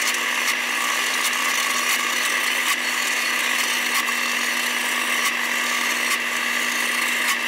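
Electric countertop blender running steadily at one speed, a constant whirring hum, as it whips egg yolk and mustard while oil is drizzled in to emulsify homemade mayonnaise.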